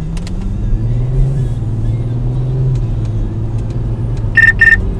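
Car engine running inside the cabin, rising in pitch as the car picks up speed. Near the end come two short high beeps about a third of a second apart from the Stinger DSI Computer radar detector, alerting to a Ka-band police speed radar.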